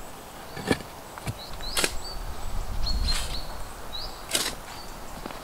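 Shovel digging into soil: a series of sharp scrapes and cuts of the blade, about one a second, the loudest three in the second half.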